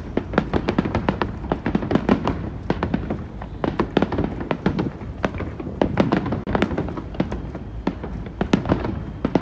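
Aerial fireworks shells bursting in quick succession: a dense string of sharp bangs, several a second, over a continuous low rumble.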